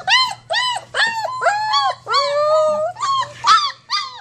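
27-day-old German Shepherd puppies whining: a quick run of short, high, arching whimpers, about three a second, with one longer drawn-out whine a little after two seconds in. The pups are whining to be let out of their whelping box.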